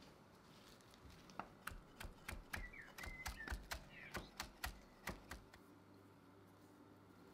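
Chef's knife chopping fresh herbs on an end-grain wooden cutting board: about fifteen sharp knocks of the blade on the wood, a few a second, starting about a second and a half in and stopping after about five seconds.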